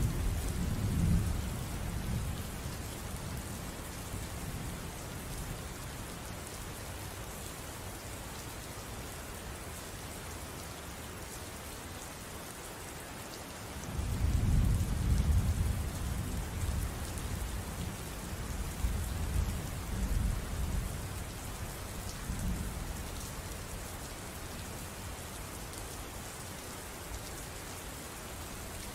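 Steady rain falling, with rolls of thunder: one dying away at the start, and a longer low rumble that swells up about halfway through and fades out over several seconds.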